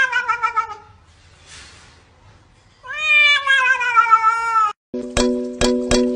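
A cat meowing: the end of one meow at the start, then about three seconds in a long, drawn-out meow that slowly falls in pitch and wavers at its end. Near the end, music with plucked, ticking notes starts.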